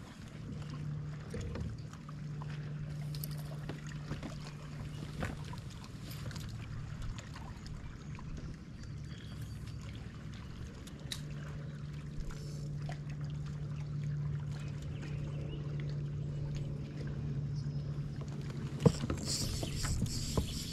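Steady low hum of a small electric kayak motor, dropping out about five seconds in and coming back about eleven seconds in, over light water and wind noise. A single sharp knock near the end.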